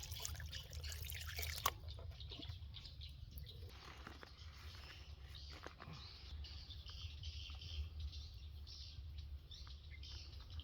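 Faint outdoor ambience: scattered high bird chirps and small ticks over a low steady hum, with one sharp click about a second and a half in.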